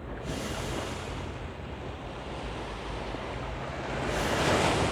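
Ocean surf washing in, a steady rush that swells louder near the end as a wave comes in.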